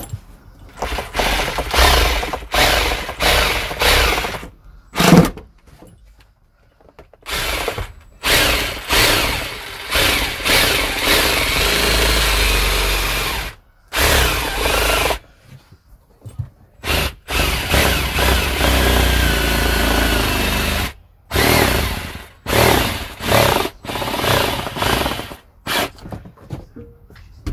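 Electric jigsaw cutting a circular hole in the van floor for a heater flue, run in spurts of one to several seconds and stopping and starting repeatedly as the cut follows the curve.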